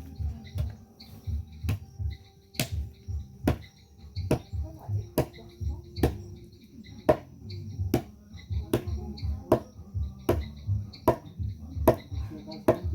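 Background music with a steady, pulsing low beat and a sharp percussive strike about every 0.8 s.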